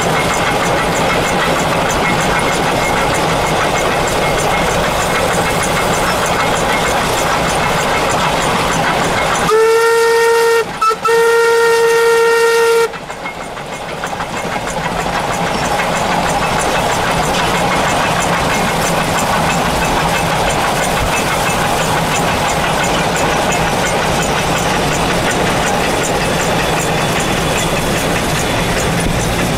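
Steam locomotive NM25's whistle blown twice about ten seconds in: a short blast, then a longer one of about two seconds, steady in pitch, over a steady running noise.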